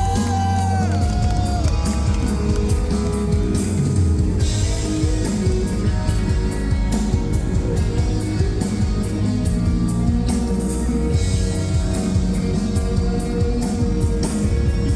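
Live metalcore band playing loud, with electric guitars, bass and drums and steady cymbal hits.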